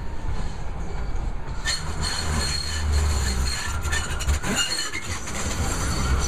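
NJ Transit Newark Light Rail car approaching and passing close by over a track switch: a low rumble that builds about two seconds in, with clicks of the wheels over the rail joints and brief, faint high-pitched wheel squeal.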